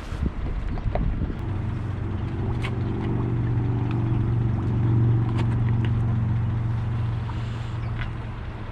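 An engine running slowly, a steady low hum that grows louder to its peak about five seconds in and then eases off, with a few light knocks.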